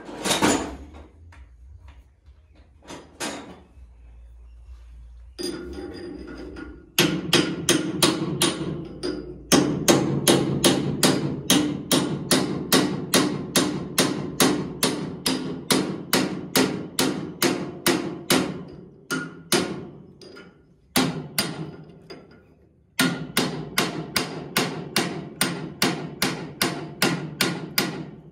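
Heavy hand hammer striking a steel chisel held against a straw reaper shaft to drive it out of its pillow-block bearing: repeated metal-on-metal blows, about two to three a second, in runs with short pauses.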